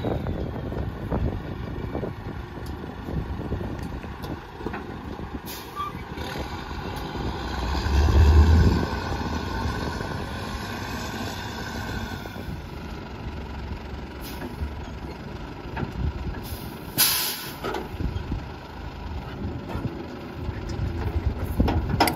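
Leach Sanicruiser rear-loader garbage truck's engine running as it pulls away, with a louder surge about a third of the way in. About two-thirds through comes a short, sharp hiss of air brakes.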